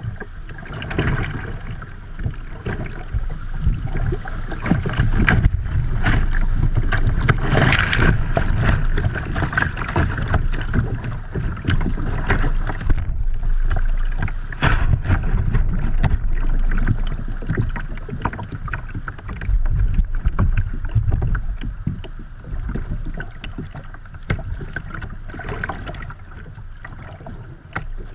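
River water rushing and splashing against a kayak's bow as it runs through a shallow riffle, heard from the bow deck, with irregular slaps and splashes throughout. It is loudest through the middle and eases off near the end.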